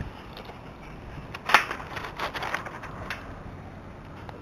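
Handling noise as a foam RC MiG-29 jet is worked free of a chain-link fence and set on concrete: rustling with a sharp clack about one and a half seconds in and a few lighter knocks after it.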